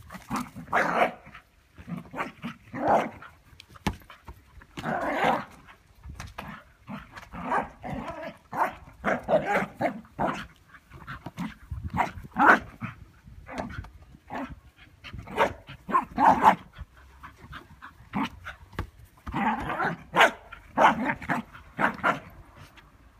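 Scottish terrier barking repeatedly in short bursts and clusters, with brief pauses between them.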